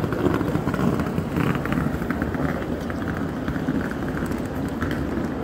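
Ambience of a busy train-station concourse: many footsteps and indistinct crowd voices, a steady mix throughout.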